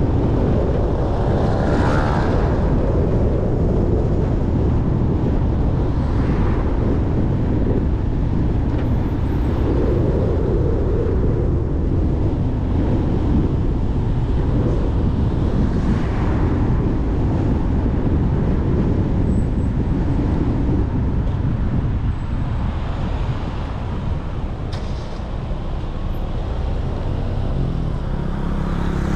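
A car driving on an open road: steady low road and engine noise with wind rushing, swelling briefly a few times.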